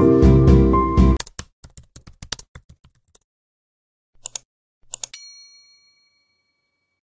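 Background music stops about a second in, followed by a quick run of computer-keyboard typing clicks. After a pause come two mouse clicks and a notification-bell ding that rings out for about two seconds: a subscribe-button animation sound effect.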